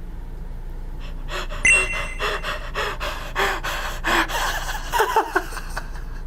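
A man gasping and breathing hard in excitement, a quick run of sharp gasps and pants starting about a second in, his reaction to pulling a rare Pokemon card.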